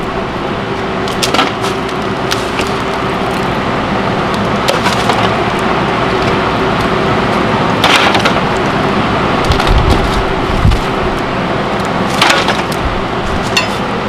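Weathered wooden lap siding being prised off a shed wall with a hand tool, the boards cracking and splintering in a few sharp snaps, loudest about eight and twelve seconds in. A steady hum runs underneath.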